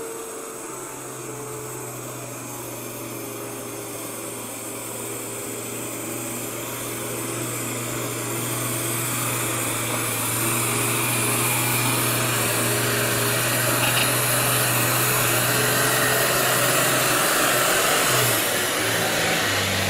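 A machine running steadily: a constant low hum under a broad hiss that slowly grows louder, peaking near the end.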